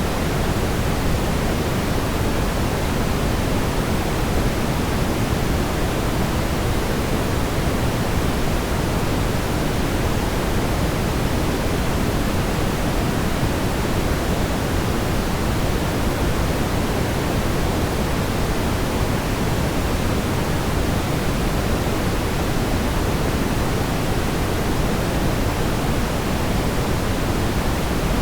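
Pure, smoothed brown noise: a steady, unchanging deep rush with no tones or events, its bass far stronger than its hiss.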